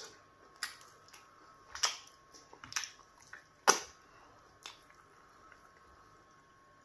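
Fingers working in slimy okra stew with pounded yam fufu, making short wet squelches and clicks about once a second, the loudest a little before four seconds in. It then goes quiet apart from a faint steady hum.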